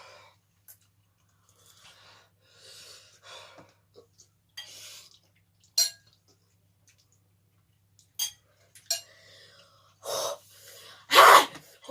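Heavy, breathy panting and gasps through the mouth from the burn of very spicy noodles, loudest near the end, with a few sharp clicks in between.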